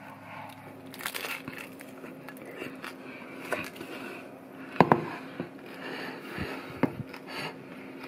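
Crisp fried rice paper crackling as the folded rice-paper pizza and its plate are handled, with a few sharp knocks, the loudest about five seconds in.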